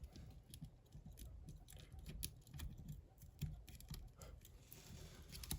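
Faint, irregular metallic clicks and light scraping of a diamond pick working the side pins inside a hardened-steel bike lock's cylinder, with a few sharper ticks.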